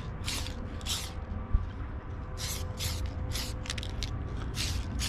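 Aerosol spray paint hissing out of the can in short bursts, about two a second with a pause near the start, over a steady low hum. A single thump about a second and a half in.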